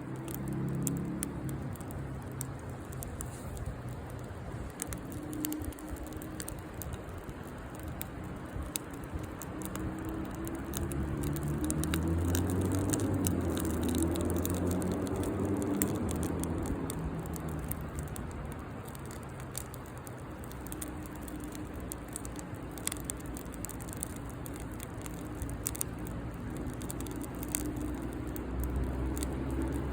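Campfire wood crackling with frequent small pops. A vehicle's low engine hum swells and fades about halfway through, and another starts to come up near the end.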